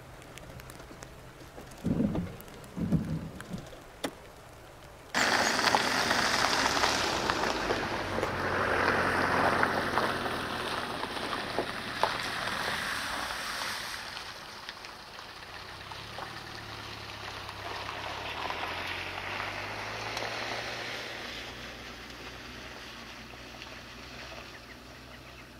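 Military vehicle noise. Two dull low thumps about two and three seconds in, then a loud hissing rumble that starts abruptly about five seconds in and slowly fades, over a steady low engine hum.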